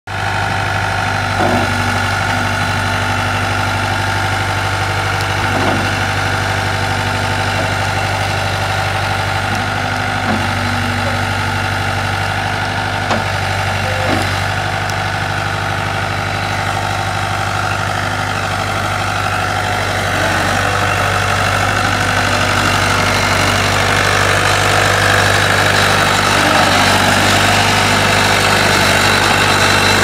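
New Holland 785 skid steer's engine running steadily, with a few short knocks in the first half as the machine works its bucket. Over the last third the engine grows louder as the loader drives.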